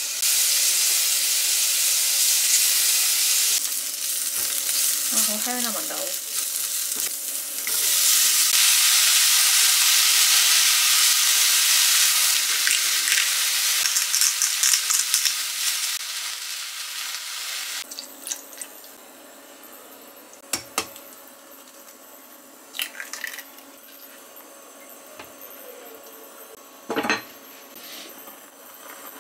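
Home cooking: a loud steady hiss in two long stretches, then quieter, with a few sharp clinks of pots and utensils.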